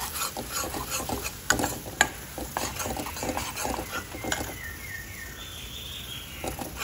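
Steel spoon scraping and knocking against a kadhai while stirring flour as it roasts in hot oil, with a light sizzle of frying. The scrapes come thick and fast, then thin out about four and a half seconds in.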